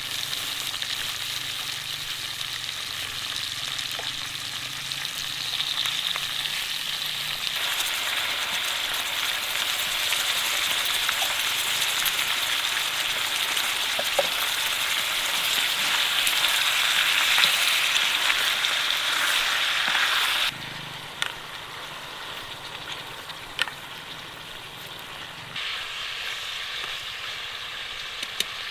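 Food sizzling and frying in a pan, a steady hiss that grows louder, then cuts off suddenly about two-thirds through to a quieter, thinner hiss.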